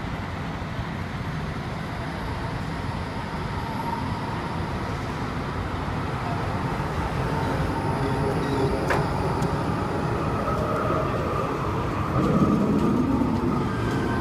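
A low-floor tram pulls into the stop and rolls past close by. Its rumble grows louder as it nears and peaks a little before the end, with a faint steady whine above it.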